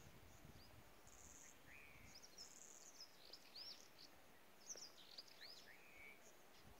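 Faint chirps and short whistled notes of small birds, most of them in the middle few seconds, with a little low wind rumble in the first two seconds.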